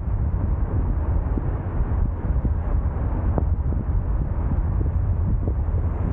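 Steady low rumble of wind buffeting the camera microphone, mixed with vehicle noise.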